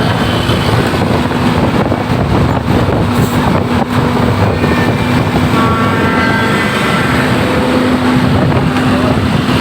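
A large vehicle's engine running close by amid road traffic noise, a steady loud hum with no breaks.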